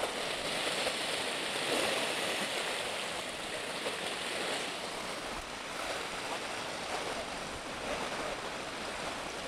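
Sea surf washing against concrete breakwater blocks, a steady rush of water that swells a little and eases.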